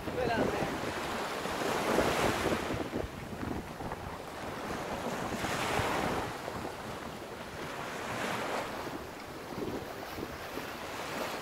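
Wind buffeting the microphone over the rush of sea water along a sailboat's hull, swelling louder about two, six and eight seconds in.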